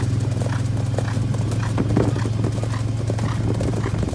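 Three horses cantering on a paved lane, their hooves clip-clopping in a quick, uneven patter over a steady low hum.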